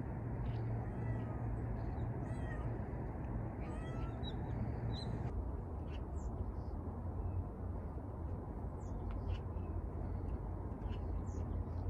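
Feral cat meowing a few short times in the first several seconds, over steady outdoor background noise.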